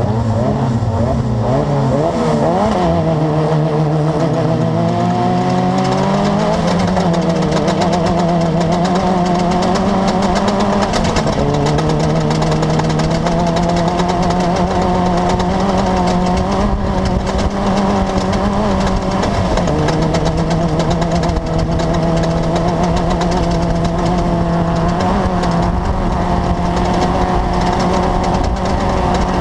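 Class 10 off-road race buggy's engine running hard. Its pitch climbs and falls again and again with throttle and gear changes, dropping suddenly a few times.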